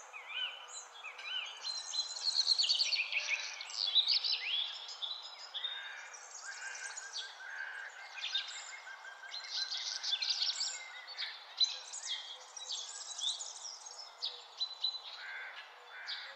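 Chorus of small birds singing and calling: many overlapping chirps, trills and quick whistles, with a fast series of repeated notes in the middle.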